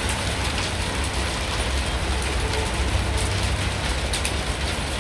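Hail and rain pelting down in a dense, steady patter, with scattered sharp ticks of individual hailstones striking. A steady low rumble runs underneath.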